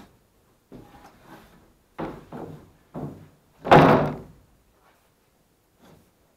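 A sheet of half-inch plywood being handled and laid onto a wooden stud wall frame: a few light knocks and bumps, then one loud thud a little under four seconds in as the sheet drops flat onto the frame.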